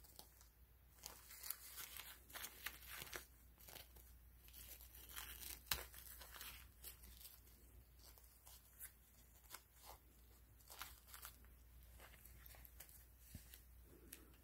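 Faint crinkling of a disposable diaper's plastic backing and its tape tabs being pulled and pressed down as the diaper is fastened, in irregular rustles with one sharp snap about six seconds in.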